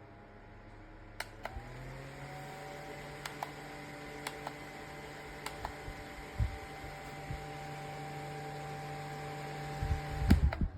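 Small battery-powered ELZO USB desk fan spinning up, its motor whine rising in pitch over the first couple of seconds, then running with a steady hum and whir. A few light clicks sound along the way, and there are handling knocks near the end just before it is switched off.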